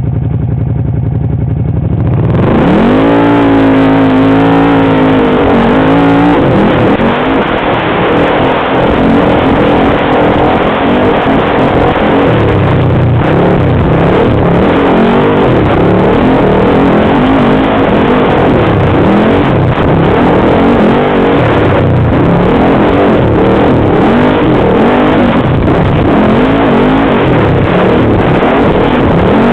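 Off-road vehicle's engine idling, then revving up sharply about two seconds in and running hard, its pitch rising and falling with the throttle, over a steady rush of noise.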